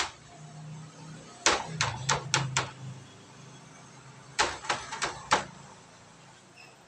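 Sharp taps and clicks on a thin metal baking tray as slices of rolled dough are set down and pressed flat on it: a quick run of about five taps, then a second run of about four a couple of seconds later, over a low steady hum.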